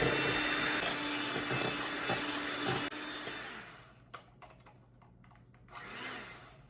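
Electric mixer running steadily, beating a cream cheese filling, then switched off about three and a half seconds in and winding down. A few light clicks and knocks follow.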